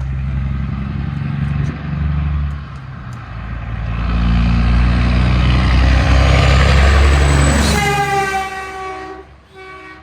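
A train passes close by, its engine noise building to a peak and dropping in pitch as it goes past, then its horn sounds a chord of several tones for about a second and a half, followed by a short second toot near the end.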